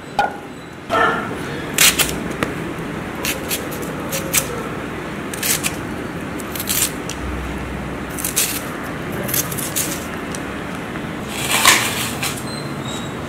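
A knife and hands working onions on a plate: sharp, irregular clicks and knocks every second or so over a steady background hiss, with a longer scraping burst near the end.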